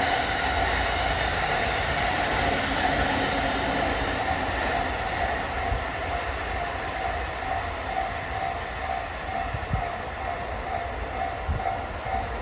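A freight train of new E233-series green cars, hauled by a JR Freight DD200 diesel locomotive, rumbling past over a level crossing, with a couple of wheel clacks near the end. The crossing's alarm bell rings throughout, in a repeating beat.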